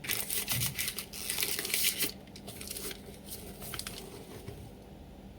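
Paper tissue crinkling and rustling as it is handled. The crinkling is dense for about two seconds, then a few scattered soft crinkles follow.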